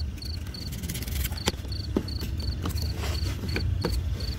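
Small salvaged printer DC motor of a homemade mini lathe running with a low hum, while a cutter blade shaping the spinning styrofoam blank makes several sharp scrapes and squeaks. A cricket chirps steadily at about three chirps a second.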